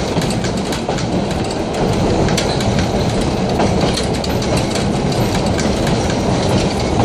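Streetcar 6119 rolling along the track, with a steady rumble and its wheels clicking on the rails.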